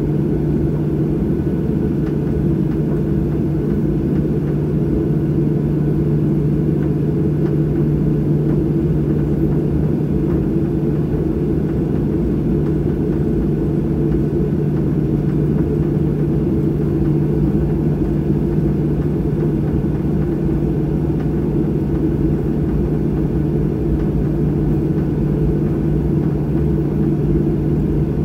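Boeing 737 jet engines at idle heard from inside the passenger cabin while the airliner taxis after landing: a steady rumbling hum with a constant low drone that does not change.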